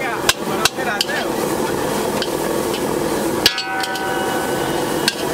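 Metal spatula striking and scraping a large steel wok while stir-frying shredded vegetables, over a steady hiss. Three sharp clangs in the first second, a louder one at about three and a half seconds that rings briefly, and another near the end.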